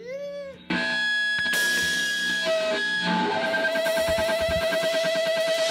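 Electric guitar starting a song: a quick swoop up and down in pitch, then a chord ringing out about a second in, which thins to a single high note held steadily from about three seconds in.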